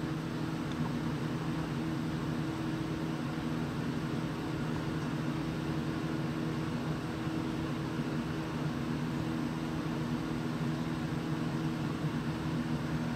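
Steady electric hum of an aquarium pump, several low tones held over an even hiss.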